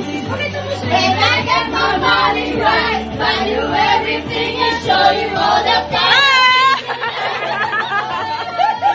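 Background pop music with a sung or spoken voice over it, and a high wavering vocal note about six seconds in.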